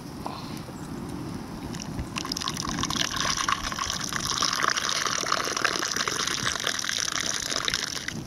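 Water pouring or gushing steadily. It starts about two seconds in and cuts off suddenly at the end.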